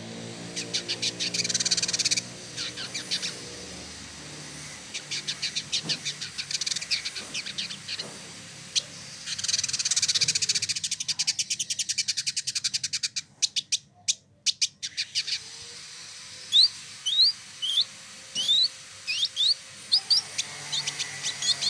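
Male village indigobird singing: fast chattering trills of rapid ticks. These give way to a run of short, sharply rising whistled notes over the last few seconds.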